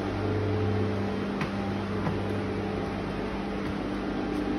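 A steady, even mechanical hum, with a couple of faint ticks.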